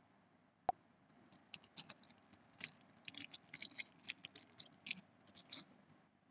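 A single sharp click about a second in, then an irregular run of light, quick clicks and taps lasting about four seconds.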